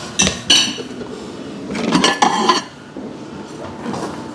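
Dishes and a serving spoon clattering against a pot and plates as rice is dished up, with sharp ringing clinks near the start and again about two seconds in.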